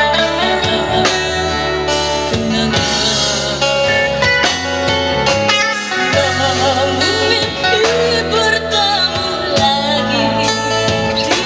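Live band performance: a girl singing into a microphone over electric guitar, bass, acoustic guitar and a drum kit keeping a steady beat.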